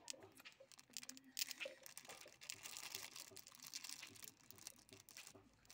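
Faint rustling, scraping and small clicks of hands handling a starter solenoid and its small metal parts, busiest in the middle.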